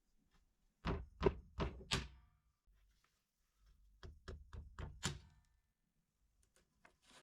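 Hard knocks or taps: four in about a second, then a run of about six more a couple of seconds later.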